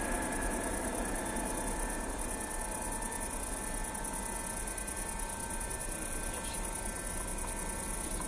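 Crickets chirping steadily in a high, fast-pulsing trill over the distant, steady rumble of a widebody jet airliner's engines as it lifts off and climbs away.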